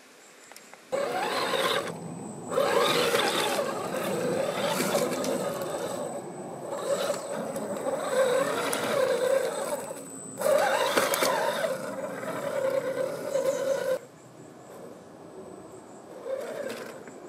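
The brushed 550 electric motor and gear drivetrain of a 1/8-scale RC rock crawler whine under load as the truck climbs over rock. The whine wavers in pitch with the throttle and breaks off briefly a few times. It starts about a second in and cuts off suddenly near the end.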